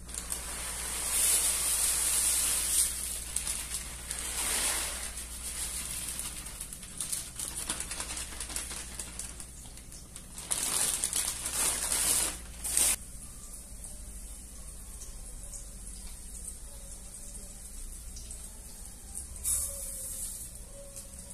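Kitchen food-preparation sounds: several bursts of hissing rustle, the longest in the first few seconds and again from about ten to thirteen seconds in, with quieter handling between and after them.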